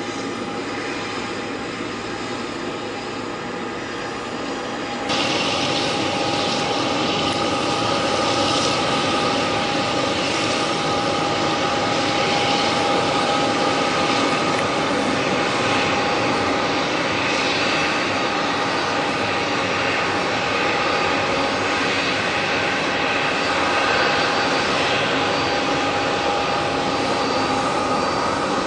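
Boeing 777 freighter's GE90 turbofan engines running at taxi power: a steady jet whine over a rushing noise, which gets suddenly louder about five seconds in.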